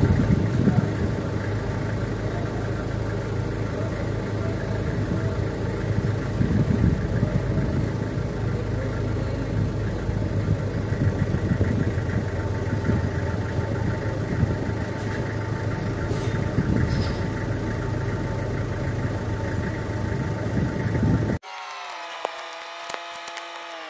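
A steady mechanical drone like an engine idling runs at an even level, then cuts off abruptly about 21 seconds in. A quieter sound of several steady tones follows and slides down in pitch near the end.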